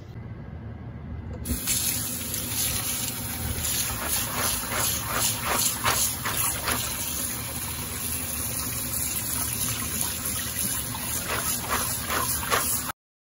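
Kitchen tap running, its stream splashing onto sprouting beans in a plastic strainer over a stainless steel sink. The water comes on about a second and a half in and cuts off abruptly near the end.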